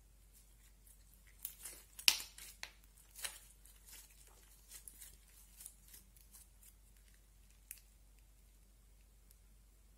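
Clay slime being stretched, folded and squeezed by hand, giving a scatter of sticky pops and crackles. The loudest pop comes about two seconds in, and the crackling stops about eight seconds in.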